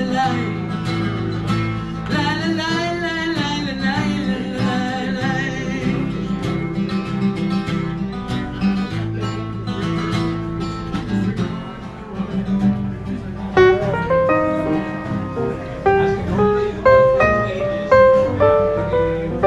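Background music: a folk song led by acoustic guitar, an instrumental passage with plucked guitar notes standing out in the second half.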